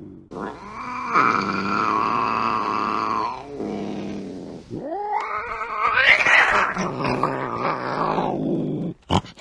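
Angry domestic cat yowling: two long calls, the first held fairly steady, the second rising in pitch at its start and harsher. A brief burst of noise follows near the end.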